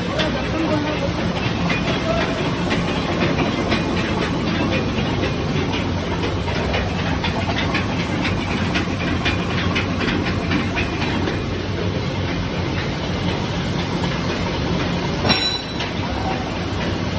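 A 300 kW Bioprom pellet burner and the roaster it fires, running: a steady blower rush with a low hum and a rapid, irregular clatter. One sharp knock comes near the end.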